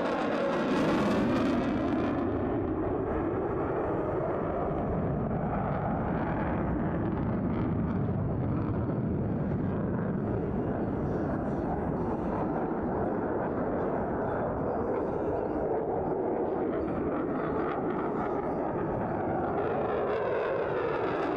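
An F-22 Raptor's twin Pratt & Whitney F119 turbofans run in afterburner during a display pass, giving loud, continuous jet noise. In the first two seconds the sound sweeps down in pitch as the jet passes. It then settles into a steady rumble, and a rising sweep comes back near the end as the jet approaches again.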